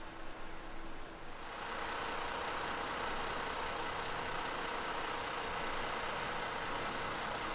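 Double-decker bus engine running at the kerb, a steady hum and hiss that grows louder about a second and a half in and then holds steady.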